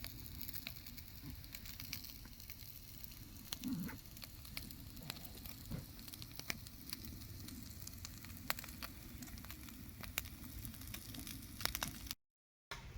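Campfire crackling and sizzling: irregular sharp pops over a low steady hiss, broken by a brief dropout near the end.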